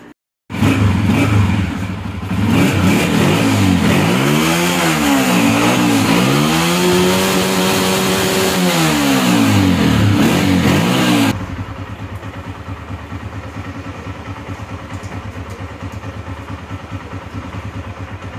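Honda CG125 motorcycle's single-cylinder four-stroke engine being revved repeatedly, its pitch climbing and falling back several times. About eleven seconds in the sound changes abruptly to a quieter, steady idle with an even pulsing beat.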